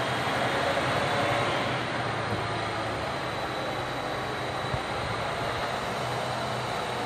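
Heat gun blowing steadily, a continuous fan-and-air rush with a low hum, used to melt solder on a wire splice; a faint tick about five seconds in.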